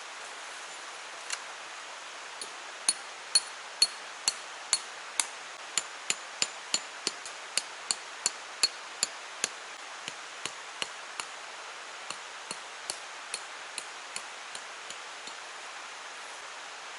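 Repeated hammer strikes on metal, about two a second, each with a short ringing ping. The blows are hardest in the first half and lighter towards the end, over the steady rush of stream water.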